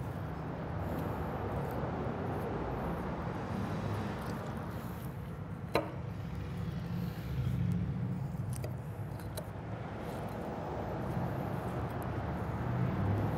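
Faint handling of smoked brisket over a steady low rumble: a knife cutting and gloved hands pulling the point away from the flat on a wooden cutting board. A single sharp click with a quick falling squeak comes about six seconds in.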